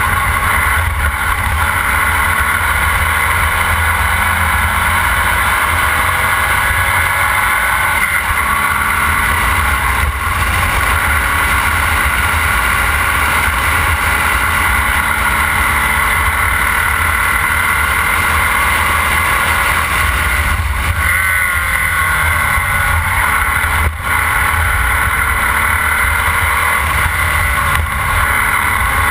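Formula Vee race car's air-cooled Volkswagen flat-four engine running hard at racing speed, heard from the open cockpit with wind buffeting the microphone. The engine note rises and falls gradually as the car accelerates and slows through the corners.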